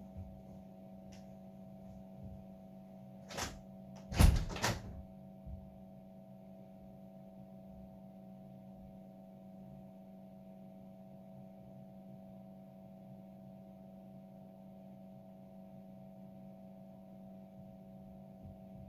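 Steady electrical hum of a glass-door drinks fridge running, with a couple of sharp thuds about three and a half and four seconds in, the second the loudest.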